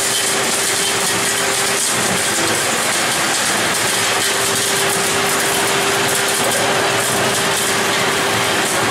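EPS styrofoam recycling pelletizer line running: the crusher shredding foam and the blower and extruder running together as a loud, steady machine noise with a steady mid-pitched tone through it.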